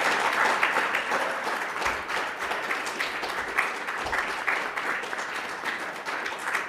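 Audience applauding, many people clapping at once; the applause slowly thins and fades.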